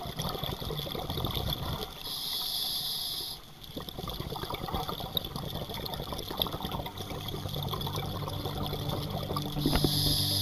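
Underwater sound of scuba breathing: a diver's regulator hisses on an inhalation about two seconds in and again near the end, with bubbling, gurgling exhalations between.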